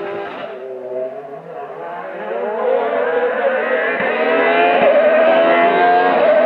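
Sports prototype race car engine accelerating hard up a hill climb toward the listener. It is fainter at first, then grows steadily louder with its pitch climbing, and the note breaks briefly twice about four to five seconds in.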